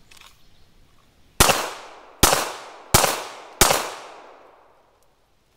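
Four shots from a Smith & Wesson M&P9 2.0 9mm pistol, fired about three quarters of a second apart, each trailing off in a short echo.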